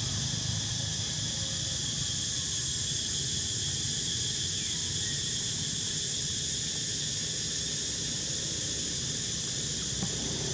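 Steady high-pitched insect chorus, continuous and unchanging, over a low steady rumble.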